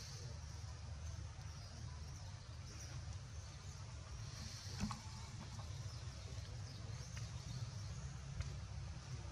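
Faint outdoor ambience: a steady low rumble with a thin high hiss that swells now and then, and one short tap about five seconds in.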